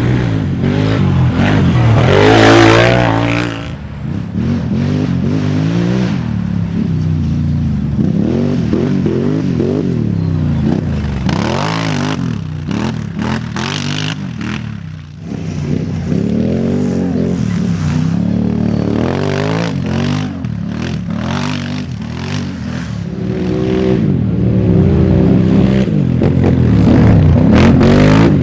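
Racing ATV (quad) engines revving hard and backing off over and over as the machines pass the camera one after another, the pitch repeatedly climbing and dropping with throttle and gear changes. The loudest passes come about two seconds in and again near the end.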